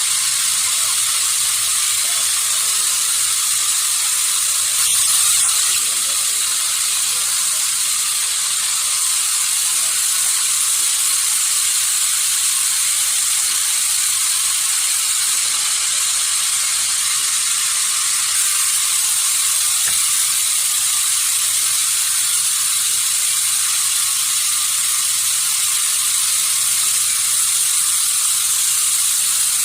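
Sawmill machinery running: a steady, hissing mechanical noise with almost no low end and no clear strokes.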